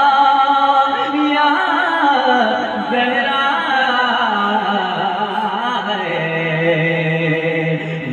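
Male naat reciter singing into a microphone, drawing out long held notes that waver and slide in pitch, with no clear words.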